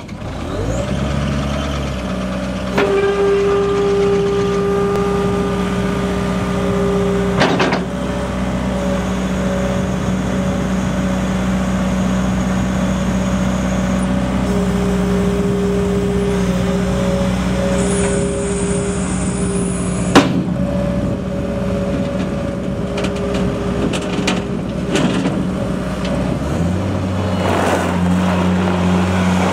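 New Holland LS170 skid steer loader's turbocharged diesel engine running steadily, with a thin whine over the engine note. There are two sharp knocks, about 7 and 20 seconds in, and the engine note changes near the end.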